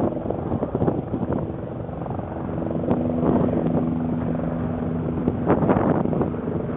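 Wind buffeting the camera microphone in gusts. A steady low hum, like a distant engine, comes in about two seconds in and fades near the end.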